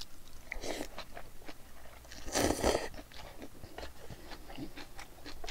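A person slurping in a mouthful of spicy mixed noodles, loudest in one half-second slurp about two and a half seconds in, then chewing with many small wet clicks.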